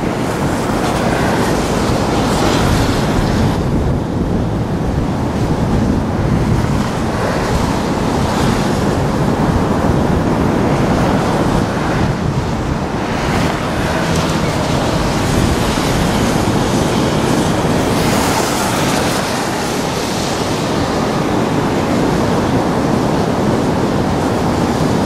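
Steady rush of water pouring over Niagara Falls, with wind buffeting the microphone.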